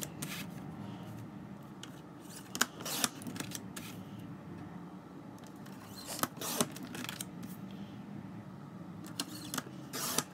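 Sliding paper trimmer cutting sheets of paper: short, sharp swishes and clicks of the blade carriage and the paper being moved, coming in small clusters a few seconds apart, over a low steady hum.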